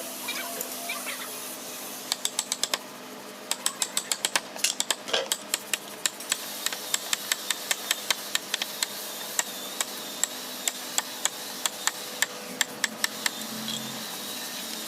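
Quick series of sharp, light taps from a hand tool striking wood, several a second in irregular runs, with a faint steady hum underneath.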